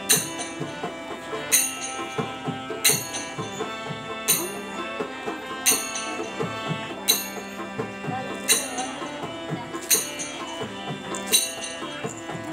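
Live instrumental music on harmonium with hand drum, the harmonium holding steady chords while the drum keeps time. A sharp, bright hit lands about every one and a half seconds.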